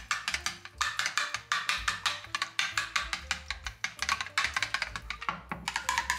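Background music: a fast clicking percussion beat, about eight hits a second, over a low bass line, the clicks breaking off briefly about five seconds in.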